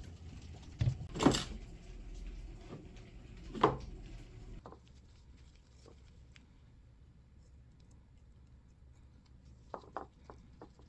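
Kitchen handling noises: two loud knocks or rustles about one and three and a half seconds in. Near the end come a few short clicks of kitchen scissors as they are brought to a peeled tangerine segment to snip out the white pith at its centre.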